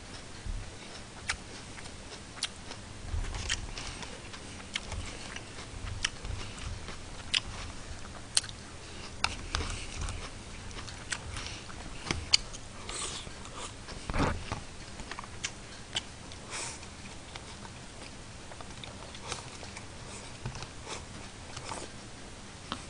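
Close-up chewing and eating sounds, with scattered sharp clicks of wooden chopsticks against a plastic lunchbox tray.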